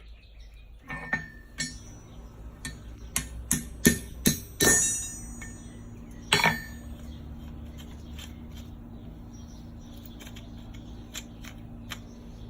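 Hammer striking steel, about ten irregular blows with a metallic ring, as a rivet pin is upset through a mortise-and-tenon joint. The blows stop after about six seconds, leaving a steady low hum.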